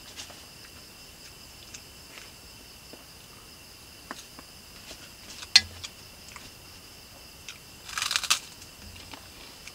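Night insects chirring steadily, under the small clicks of a spoon on a plate while someone eats. There is one sharper clink about five and a half seconds in, and a short, loud crunch just after eight seconds as food is bitten.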